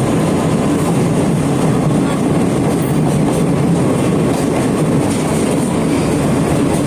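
Sagano Romantic Train running along the track, heard from aboard a carriage: a steady, loud rumble of wheels on the rails.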